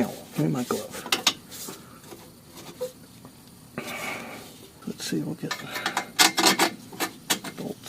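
Irregular metallic clinks and knocks of hand tools and exhaust hardware being handled, bolts and flange pieces tapping together, with a busier cluster of clinks about five seconds in.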